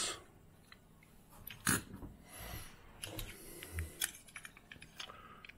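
Small metal die-cast toy cars being handled and sorted: light clicks and knocks as they are picked up and set down, with a brief rustle in the middle.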